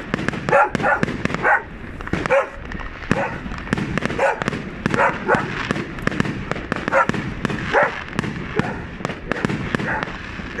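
New Year fireworks going off with many sharp bangs and crackles throughout, while a dog barks over and over.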